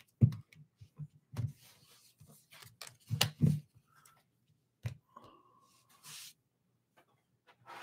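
Stacks of baseball cards in rigid plastic toploader holders being flipped through and set down: a run of irregular light plastic clicks and taps, with rubbing between them, thinning out after about five seconds.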